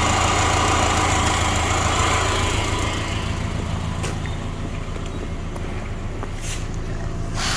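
Subaru EJ203 2.0-litre non-turbo flat-four engine idling evenly during a health check, with no blow-by or smoke. Its upper hiss fades about three seconds in, leaving the low steady running.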